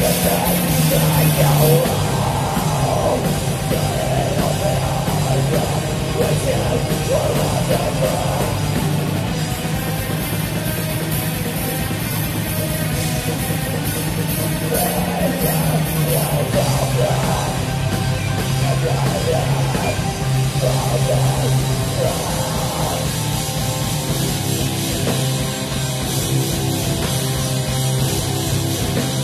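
A live post-black metal band playing at full volume, with distorted guitars, held low bass notes that change every few seconds, and fast, dense drumming.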